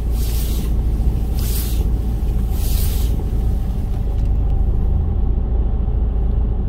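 Truck diesel engines running with a steady low rumble, with three short hisses about a second apart in the first three seconds.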